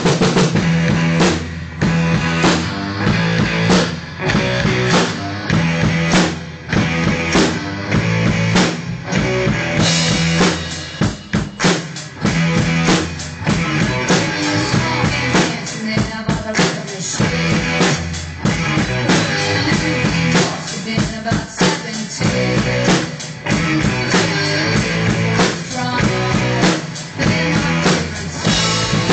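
Acoustic drum kit played in a steady rock beat, bass drum, snare and cymbals, along with a recorded rock song.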